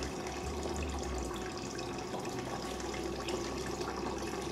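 Water running steadily through a small tabletop flow channel, an even rushing noise with a low hum underneath.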